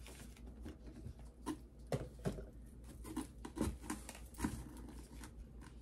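Plastic lotion bottles being handled and set into a storage bin, with irregular light knocks and rustles.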